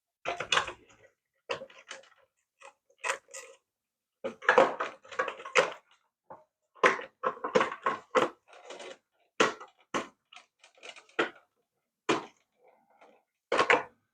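Irregular clicks, knocks and rattles of a toy RC car's plastic parts being handled and worked on during disassembly, in short clusters with brief gaps between them.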